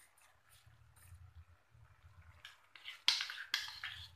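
A metal spoon scraping thick whisked curd off a small bowl into a pan of masala: a few short wet scrapes and clinks, starting about two and a half seconds in and loudest near the end.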